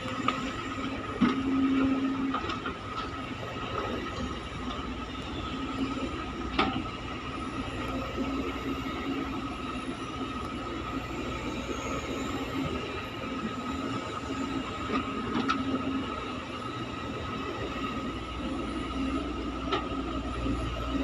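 CASE excavator running while loading a dump truck: a steady engine drone with a constant high whine, and a few sharp clanks.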